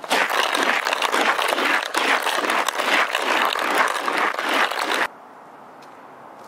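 A steam iron scraped fast along a gravel path, a loud continuous gritty scraping that cuts off suddenly about five seconds in, leaving a low steady hiss.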